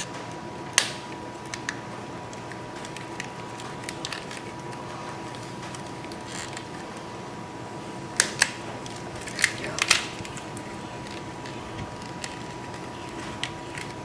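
Sharp clicks and snaps of plastic wiring-harness clips and corrugated loom being worked loose by hand from under an LS V8 engine: a few single clicks near the start, then a cluster of louder snaps about eight to ten seconds in.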